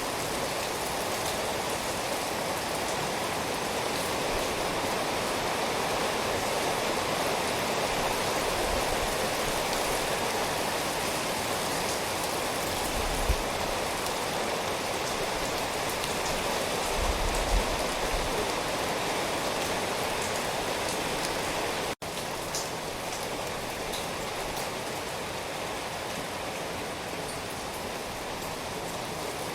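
Steady rain falling and pattering on surfaces, an even hiss, with a couple of brief low thumps in the middle. About three-quarters of the way through, the sound cuts out for an instant and resumes a little quieter, like a splice in the recording.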